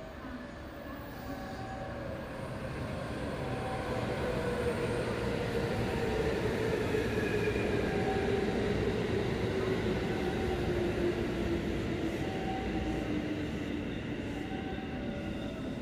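JR West 221 series electric train arriving and braking: the rumble of wheels on rail grows louder as it passes, then eases, while a motor whine falls steadily in pitch as the train slows.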